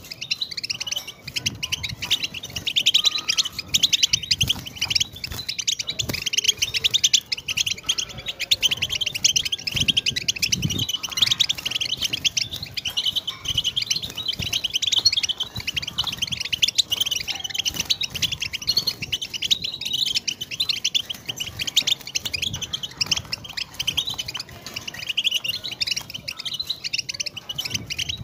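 European goldfinch singing: a long, unbroken run of fast twittering notes.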